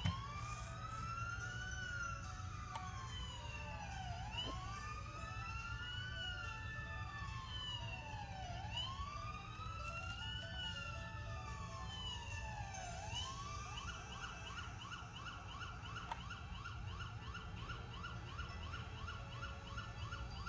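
Fire engine siren played back through computer speakers: a slow wail rising and falling about every four seconds, three times, then switching about fourteen seconds in to a fast yelp, over a steady low rumble.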